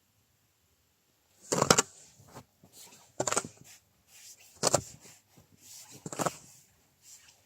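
Slow footsteps crunching in deep snow: four heavy crunches about a second and a half apart, with fainter crunches between them, beginning after a short silence.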